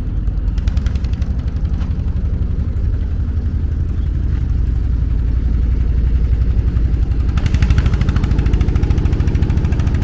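Honda four-stroke outboard motors idling steadily with an even, fast pulsing rumble, which grows a little louder and brighter near the end.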